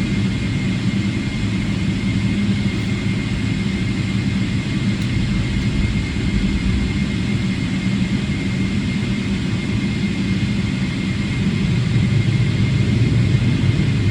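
Steady low rumble of a Boeing 777-300ER's GE90 jet engines, with a thin, steady high tone above it, growing a little louder near the end.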